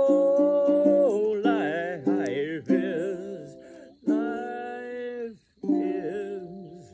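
End of a self-accompanied acoustic song. A man's voice holds a long last note that wavers in pitch. Then three final strummed chords on a small acoustic string instrument come about a second and a half apart, each ringing out and fading.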